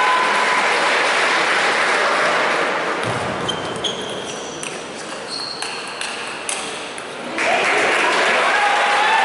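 Table tennis rally: the ball clicks sharply back and forth off bats and table, many hits carrying a short high ping, for about four seconds. Crowd applause fills the first three seconds and breaks out again when the rally ends about seven seconds in.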